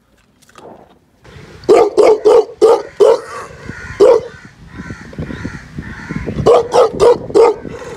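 A dog barking: a quick run of about five barks, a single bark a second later, then another fast run of barks near the end.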